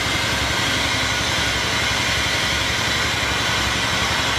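Machinery running steadily: a constant low hum under an even hiss, with no change in pitch or level.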